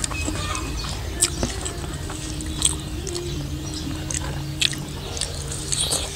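A person eating, with chewing, small wet clicks and occasional crisp crackles, over faint background music.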